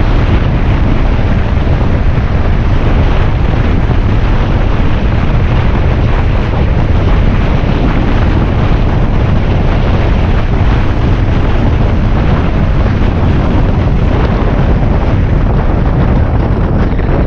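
Heavy, steady wind buffeting on the microphone of a moving motorbike, with the enduro bike's engine running underneath.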